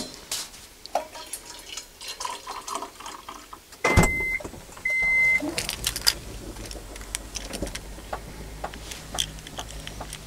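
Small clicks and knocks of things being handled in a car's cabin while tea is being made. There is a sharp thump about four seconds in, then two short electronic beeps, and a steady low hum starts with them and carries on.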